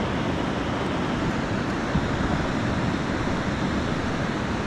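Steady rush of surf washing on the shore, mixed with wind noise on the microphone.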